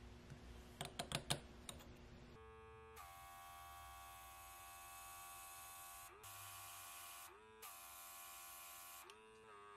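A few sharp plastic clicks, then a small airbrush compressor starts with a steady motor hum. The airbrush sprays in three stretches of hissing air, and the motor's pitch shifts each time the spray starts and stops.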